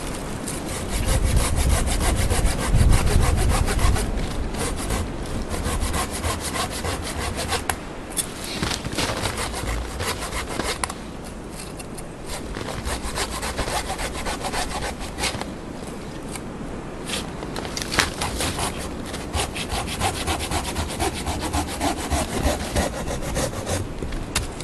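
Hand saw cutting across the top of a dead, standing tree stump in steady back-and-forth strokes, trimming it down to a flat top.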